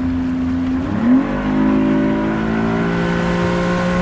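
Motorboat engine running, then throttled up about a second in, with a quick rise in pitch. Its pitch keeps climbing slowly as the boat gathers speed.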